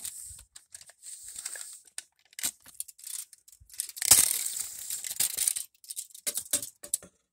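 Handling noise as a tape measure is pulled out and laid across a boat's glove box, with the hand-held camera being moved about: irregular clicks, rustling and scraping. The loudest scraping comes about four seconds in, and the sound cuts off abruptly near the end.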